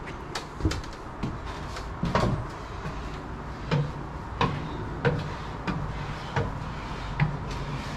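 Footsteps on wooden scaffold boards: irregular hollow knocks and thuds, roughly one a second, over a steady low background hum.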